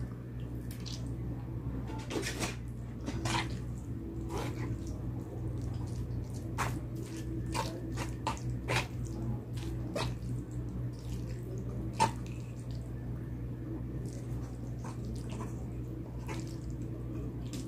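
Close-up mukbang eating sounds: wet chewing and irregular lip smacks and mouth clicks of someone eating palabok noodles and calamares, over a steady low hum.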